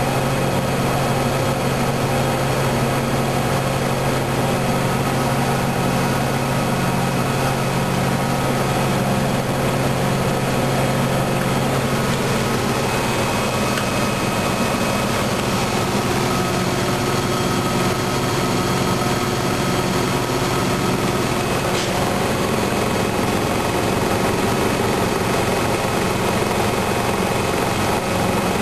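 Washing machine running, its motor and drum giving a steady hum with a higher whine above it. The hum's pitch shifts about halfway through.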